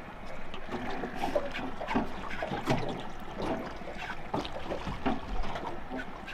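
Small waves lapping and slapping irregularly against the hull of a small aluminium boat drifting on calm sea.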